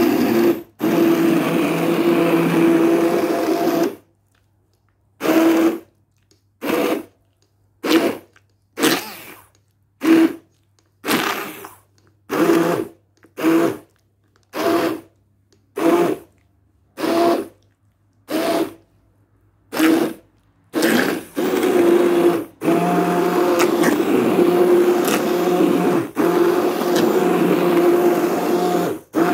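Hand-held immersion blender puréeing cooked apples in a pot into applesauce. It runs steadily for about four seconds, then in a dozen or so short pulses about a second apart, then in longer runs with brief breaks near the end.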